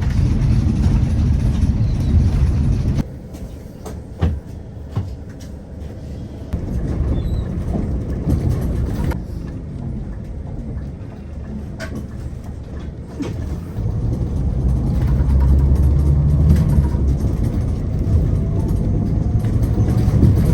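A bus running: a heavy low engine and road rumble with a few sharp knocks. The rumble drops suddenly about three seconds in and builds up again in the second half.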